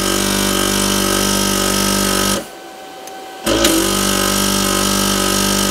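Hakko FR400 desoldering station's vacuum pump running in two triggered bursts, a steady pitched hum that stops about two and a half seconds in and starts again about a second later. The pump engages on the trigger now that the heater is at its 750°F set point, showing the unit works.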